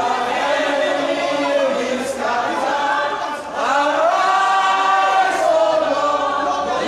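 A congregation singing a worship song together, many voices holding long notes, with a brief dip about three and a half seconds in.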